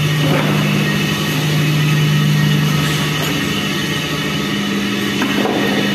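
Steady machine hum with an even low tone, like an engine idling, holding level throughout.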